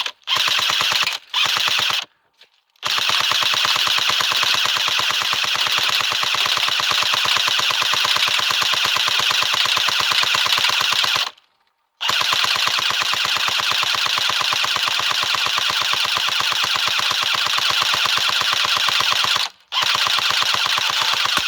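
Airsoft assault rifle firing on full auto: rapid, evenly spaced shots in two short bursts, then two long bursts of about eight seconds each, separated by a brief pause.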